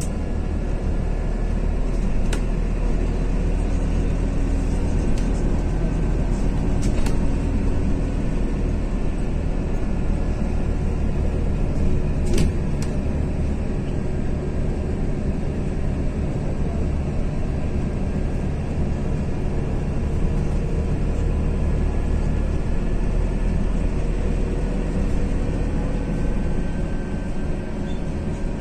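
Scania CityWide 12LF CNG city bus driving at speed, heard from inside the passenger cabin: a steady low rumble of engine and road with faint whines that drift in pitch. Three brief sharp knocks or rattles stand out, the loudest about twelve seconds in.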